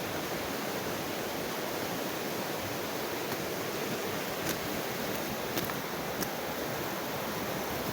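Mountain stream rushing over its bed in a steady, even wash of water noise, with a few faint clicks in the middle.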